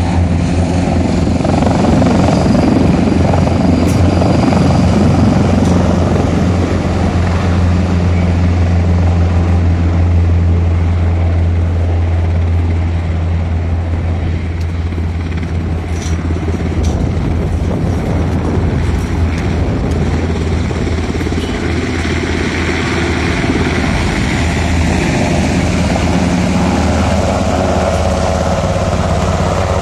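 Military helicopters flying low close by: a loud, steady drone of rotors and engines, easing off slightly around the middle and building again as one helicopter passes close near the end.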